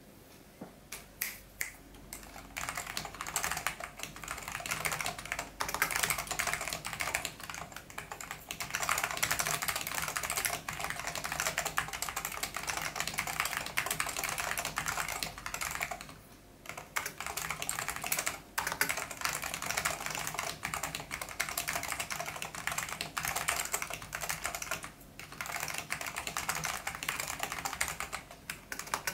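Fast continuous typing on an SGI Granite keyboard fitted with linearized orange Alps switches and thick PBT keycaps: a dense run of key clacks. A few scattered keystrokes come first, and three short pauses break the run.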